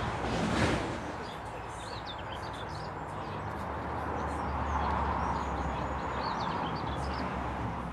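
Goldfinches chirping at the nest: many short, high calls scattered through, over a steady low background rumble that swells a little around the middle.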